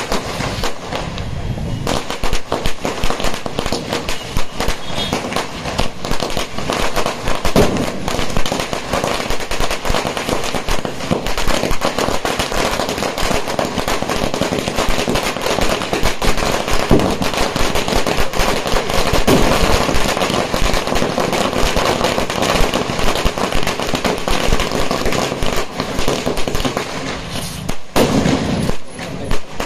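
A long string of firecrackers laid along the ground bursting in a rapid, unbroken rattle of bangs.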